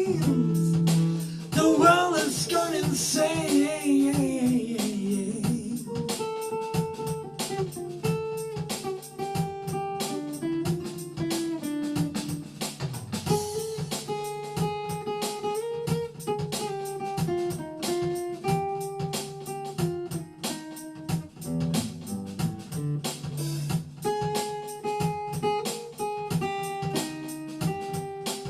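Soul music: electric guitar playing melodic lines over bass and drums, with a last wavering sung phrase in the first few seconds before the band carries on instrumentally.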